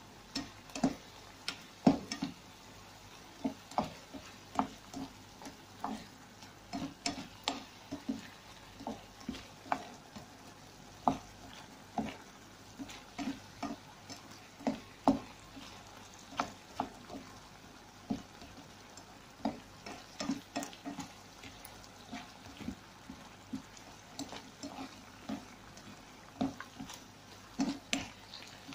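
Pancit noodles and vegetables being stirred and tossed in a frying pan with a utensil: irregular knocks and scrapes against the pan, about one or two a second, over a faint sizzle.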